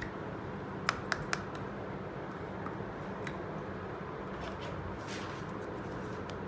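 Small clicks and taps of tiny steel toy kitchen pieces being handled, with three sharp clicks close together about a second in and fainter ticks later, over a steady background hiss.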